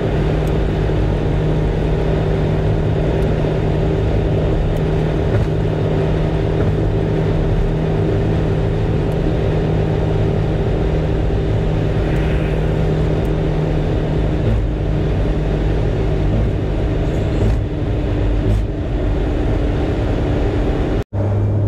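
An engine running steadily at a constant speed: a loud, even low drone with a steady hum. It cuts out for a moment near the end.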